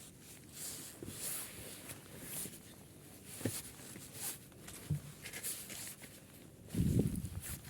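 Intermittent rustling and handling noises with a few soft knocks, and a louder low thump about seven seconds in.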